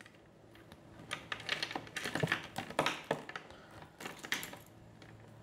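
Power-supply cables and their plastic connectors being handled: a run of light clicks and rustles starting about a second in and dying away after about four seconds.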